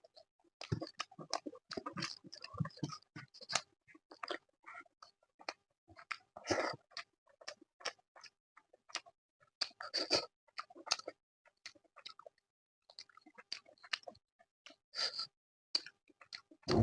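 Close-miked chewing of soft food, chicken curry with rice and naan, with many irregular short wet mouth clicks and smacks.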